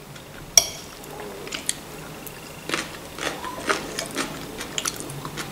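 Metal fork clicking and scraping on a ceramic plate while picking up cucumber-and-tomato salad, with chewing sounds in between. One sharp click comes about half a second in, then a run of lighter, irregular clicks and soft crunches.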